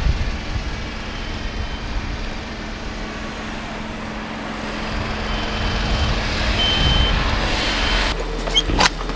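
Steady vehicle engine and traffic noise, with a short high beep sounding several times in the second half and a few sharp clicks near the end.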